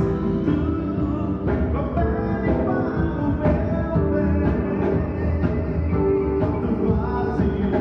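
Live band playing a gospel song with drums, electric guitar, keyboard and horns under a singer's voice, with a steady beat of drum hits.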